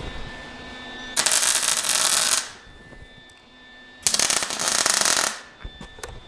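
Two short tack welds with an arc welder, each a loud, even crackle lasting just over a second, the second starting about three seconds after the first.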